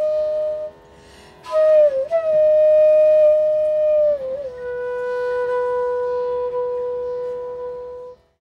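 Background music: a solo flute holding long notes, sliding down in pitch between them, with a short break about a second in; it stops just before the end.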